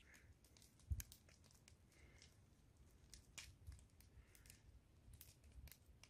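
Near silence with faint, irregular crackles and clicks, one a little louder about a second in.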